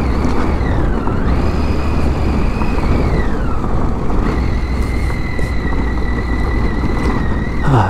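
Triumph Tiger 800's three-cylinder engine running as the motorcycle rides down a gravel track, over a steady rush of wind and tyre noise. Its pitch drops twice in the first few seconds, then holds steady.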